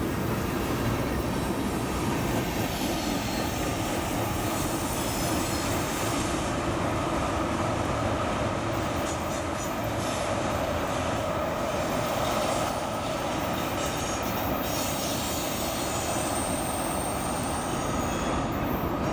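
Railroad cars of a train rolling past on the rails, a steady rumble with a faint high wheel squeal over it.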